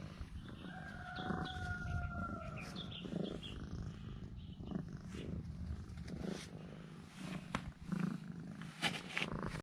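A Chinese rural domestic cat purring steadily, with a thin whistling tone about a second in and a few soft rustles and clicks.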